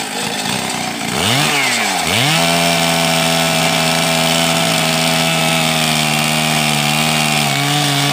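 Two-stroke chainsaw cutting into a small tree stem at full throttle. About a second in, the engine pitch swings up and down twice, then it holds a steady high whine, dipping slightly near the end.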